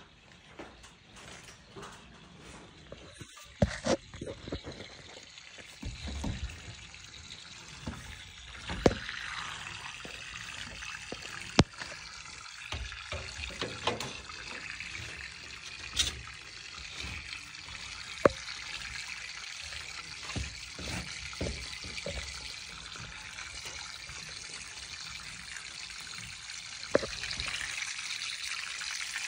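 Water running and trickling through a PVC drain pipe, a steady flow that grows louder about nine seconds in. Several sharp knocks and taps from the pipe being handled.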